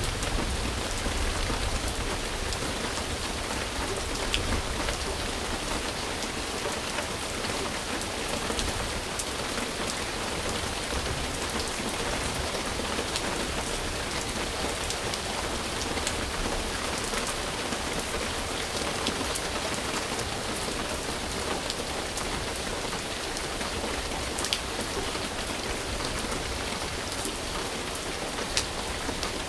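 Steady rain falling and pattering on surfaces, with scattered single drops ticking through it and a low rumble in the first few seconds.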